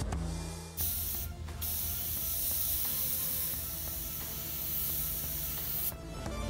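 Point Zero PZ-360 airbrush spraying thin paint: a steady hiss of air that starts about a second in, breaks off briefly just after, and stops shortly before the end.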